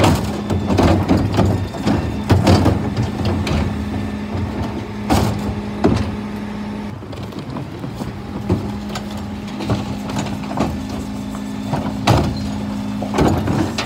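Rear-loading refuse truck's engine and hydraulic bin lifts running with a steady hum, while plastic wheelie bins are lifted and tipped into the hopper. Repeated bangs and clatters come from the bins knocking on the lift and emptying.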